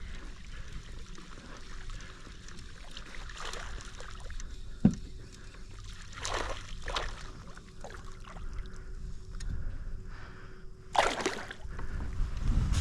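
Water splashing and sloshing at a kayak's side as a hooked fish is landed, with short bursts of splashing and one sharp knock about five seconds in. Wind rumbles on the microphone throughout.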